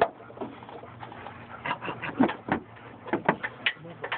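Dog barking in quick runs of short barks, one cluster about one and a half seconds in and another about three seconds in.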